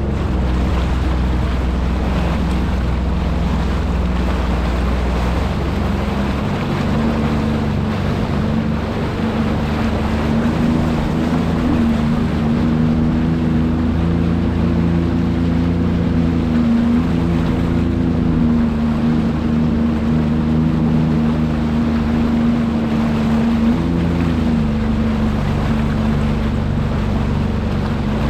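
Sea-Doo jet ski engine running under way, its pitch rising and falling several times with the throttle, over rushing water.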